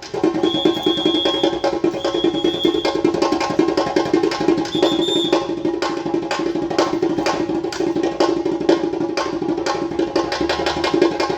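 Music from a rehearsal, driven by fast, steady percussion hits over a sustained lower part, with a few brief high notes.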